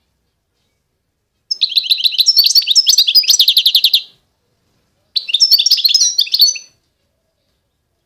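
A songbird singing two fast phrases of high, rapidly repeated notes: a longer one of about two and a half seconds, then after a short pause a shorter one of about a second and a half.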